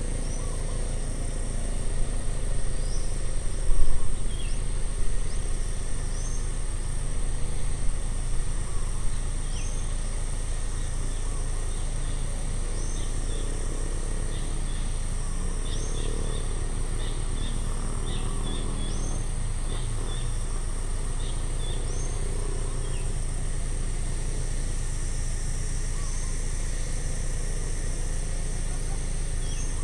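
Outdoor ambience: a steady low rumble like distant road traffic under a continuous high insect drone, with small birds giving short, falling chirps every second or two, which thin out after about 23 seconds.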